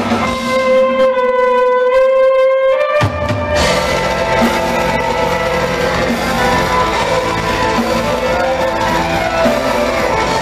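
Live progressive extreme metal band: for about the first three seconds a single held note rings over a sparse backing, then the full band of drums, guitars and bass comes back in about three and a half seconds in and plays on loudly.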